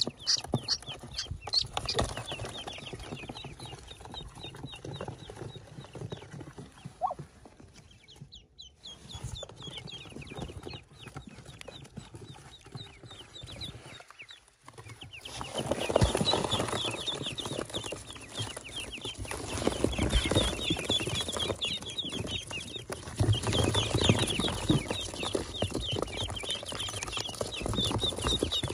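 Ducklings peeping: thin, rapid high peeps, at first from a single bird. About halfway through they swell into a louder, dense chorus of many ducklings peeping at once.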